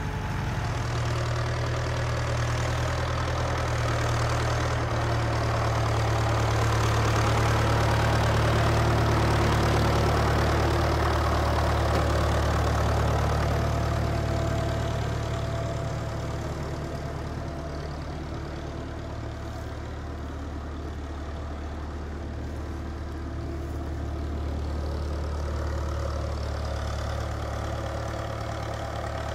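Tractor engine running steadily, growing louder over the first several seconds and easing off about halfway through.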